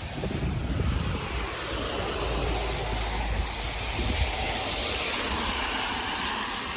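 Vehicle tyres hissing on wet pavement as traffic passes, the hiss swelling to a peak about five seconds in and then fading. Low wind rumble on the microphone in the first two seconds.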